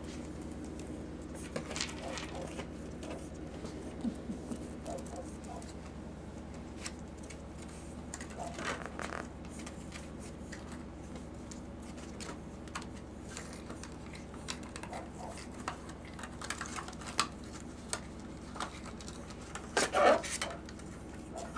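Puppies' paws and claws pattering and scratching on carpet and hard surfaces, with scattered light clicks and rustles, over a steady low hum. A brief vocal sound comes about a second and a half before the end.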